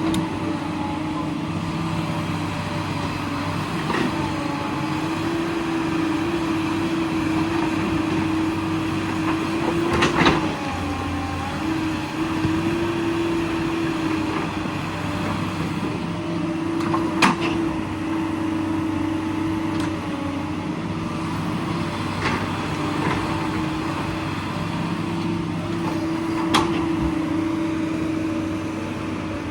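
Excavator's diesel engine running steadily, its pitch lifting slightly now and then as it takes load, with five sharp clanks spread through.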